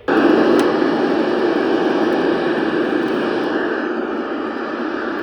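Loud radio static hissing from a weather radio receiver, steady for about five seconds and then cutting off suddenly.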